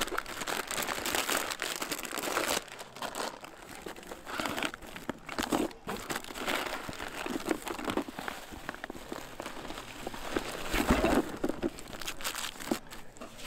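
Irregular crinkling and rustling of something being handled, in uneven bursts with a louder patch near the end.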